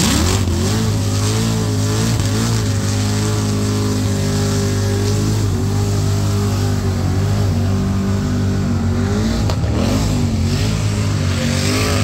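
Chevrolet Camaro burnout car at full throttle with its rear tyres spinning. The revs jump up at the start and then hold high, the pitch wavering up and down, over a loud hiss of tyre spin.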